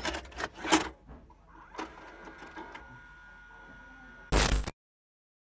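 Intro sound effect for a VHS-style title card. Rapid typewriter-like mechanical clicks die away about a second in, and a faint mechanical whir with a thin high tone follows. Near the end comes a short loud burst of static, which cuts off to silence.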